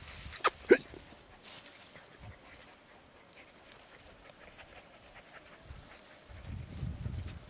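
Andalusian podenco hound giving two sharp yelps about a quarter second apart, half a second in, each dropping in pitch. A low rumble follows near the end.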